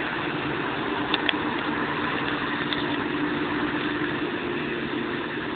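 Claas Jaguar 690 SL self-propelled forage harvester running steadily, a continuous engine drone with a held tone, with a couple of short ticks about a second in.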